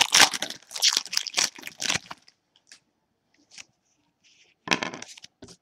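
Foil trading-card pack wrapper crinkling as it is handled and opened by hand for about two seconds. After that it goes quiet apart from a few faint ticks of cards being handled and a short rustle near the end.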